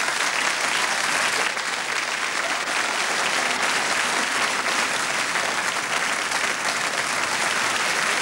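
Studio audience applauding, dense steady clapping.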